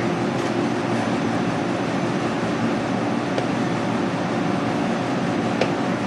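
Steady hum of air-handling machinery, with a few faint ticks of a knife working along lamb rib bones.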